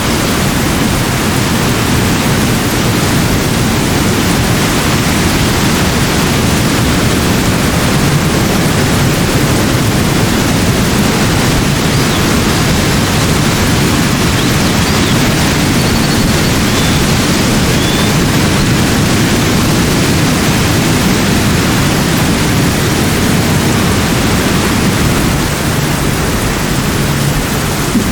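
Steady, even rushing noise of running water, such as a stream or waterfall. A few faint, short, high bird chirps come through it, mostly past the middle.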